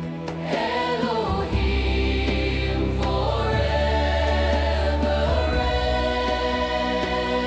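Christian worship music: a choir singing held chords over sustained low bass notes, with the bass shifting a couple of times.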